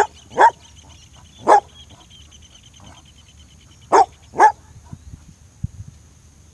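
Border collie barking, five short sharp barks: two in quick succession, a third a second later, then another quick pair about four seconds in.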